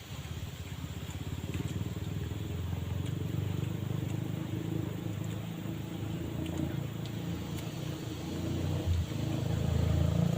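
A steady low engine rumble, like a small motor running, that grows a little louder near the end.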